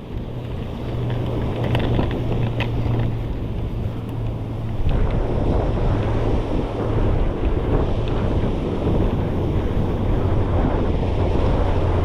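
Wind buffeting the microphone over the wash of the sea: a steady rumbling noise that grows louder about five seconds in.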